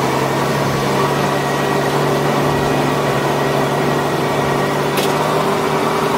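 Kenworth C500 bed truck's Cummins diesel engine running steadily at low speed, heard close beside its exhaust stack, with a single short click about five seconds in.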